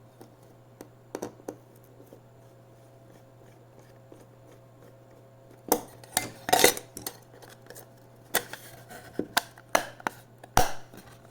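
Casing and circuit board of a SATA SSD being fitted back together by hand: scattered sharp clicks and clatter, sparse at first and busier in the second half.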